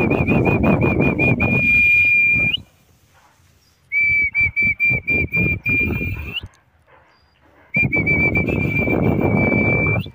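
A high whistle sounding three times, each blast about two and a half seconds long. Each one warbles at first, holds a steady pitch and slides up at the end, over a rough blowing noise.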